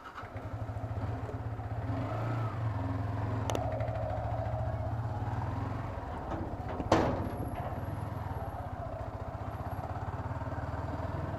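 Yamaha R15M's 155 cc single-cylinder engine running steadily at low revs as the motorcycle moves off, with one sharp clack about seven seconds in.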